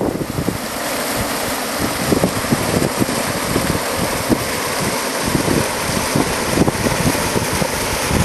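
Hill stream water rushing and splashing over rocks in a steady hiss, with wind buffeting the microphone in irregular low gusts.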